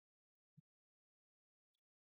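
Near silence, broken by one faint short click about half a second in and a fainter tick near the end.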